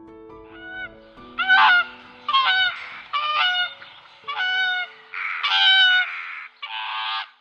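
A series of about seven loud, short honking animal calls, each about half a second long, over soft piano music; the sound cuts off abruptly near the end.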